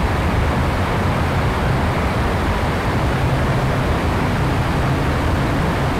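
Steady driving noise from a vehicle travelling through a highway tunnel: an even rush of road and air noise with a low hum underneath.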